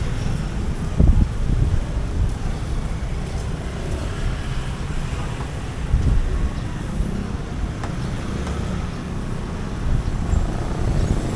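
Street traffic noise from passing vehicles, with wind rumbling on the microphone.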